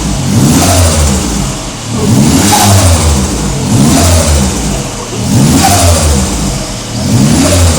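Turbocharged Perodua Viva 1.0 three-cylinder engine, straight-piped, revved in five quick blips, each a rise and fall in pitch topped by a hissing rush: the RHF4 turbo spooling and fluttering as the throttle is lifted.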